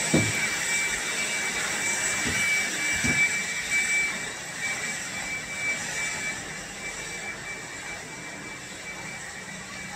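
Steady background hiss with a thin high whine, slowly fading, and a few soft low thuds in the first few seconds.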